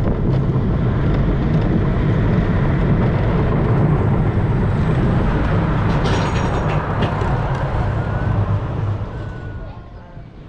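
Gerstlauer bobsled roller coaster train running along the steel track, with a steady loud rumble from the wheels. There is a brief burst of rattling about six seconds in. The rumble dies away near the end as the train slows at the foot of the lift hill.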